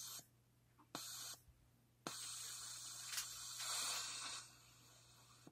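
Electrical static from an amplifier speaker, picked up from a plasma ball through a hand touching the metal of a cable plugged into the amp. It comes as bursts of hiss that each start with a click: two short ones, then a longer, louder one from about two seconds in, fading to a faint hiss near the end, over a steady low mains hum.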